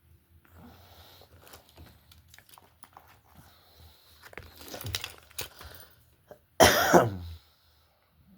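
Small clicks and scrapes as fishing pliers pry open a metal split ring, then one loud cough about six and a half seconds in.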